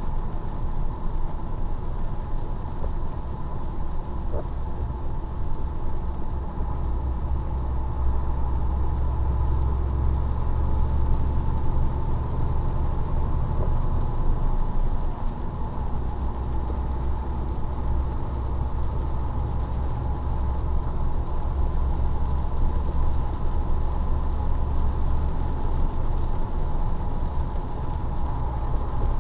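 Truck engine running steadily while driving, heard from inside the cab as a constant low drone, with a faint steady whine above it.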